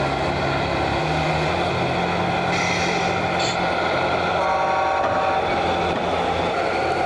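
Simulated truck diesel engine from an RC model Scania's sound module, running steadily and stepping up in pitch about a second in. A short tone sounds a little past the middle.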